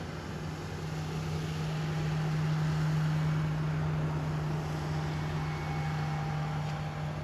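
Pontoon boat's outboard motor running at speed as it passes, a steady low hum that swells to its loudest about three seconds in and then eases slightly.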